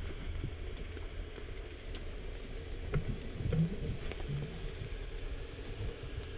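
Muffled underwater sound picked up by a camera held below the surface: a steady low rumble of water noise with scattered faint clicks and a few short low knocks near the middle.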